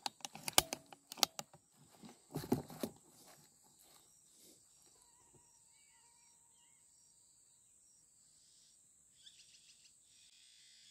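A run of sharp crackles and clicks in the first three seconds, then faint bird chirps over a thin steady high hiss, with a few soft clicks near the end.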